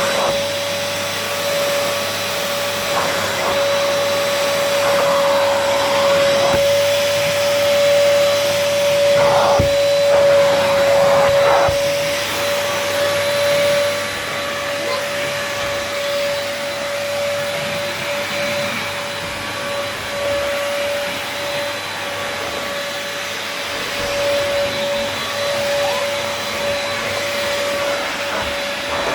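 Arzum Pronto Red AR4085 800-watt upright stick vacuum cleaner running with a steady motor whine and airflow hiss, picking up spilled dust and debris, with a few brief rattles as bits are drawn in.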